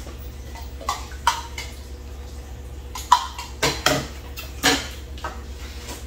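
Tableware clinking and knocking during a meal: red soup bowls, chopsticks and a ladle in the soup pot, about six short, sharp knocks, the loudest about three seconds in.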